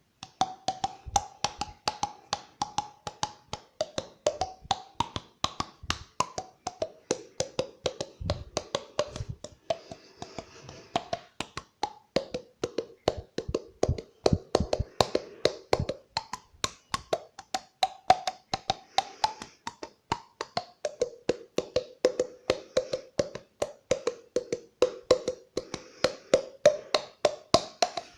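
Mouth-made clicking sound effects: a rapid, steady run of sharp tongue clicks whose pitch shifts up and down.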